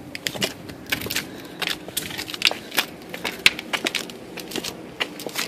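Irregular sharp clicks and crunches, several a second, from footsteps and handling of the camera while climbing a stairway, over a faint low steady hum.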